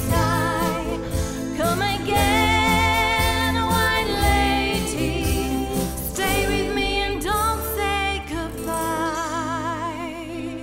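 A woman singing long held notes with vibrato over a sustained instrumental backing, the song fading down near the end.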